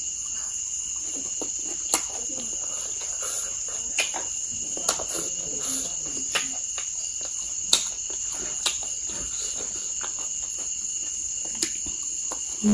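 Steady high-pitched insect chirring, heard as a constant shrill tone, with scattered sharp clicks and knocks every second or two.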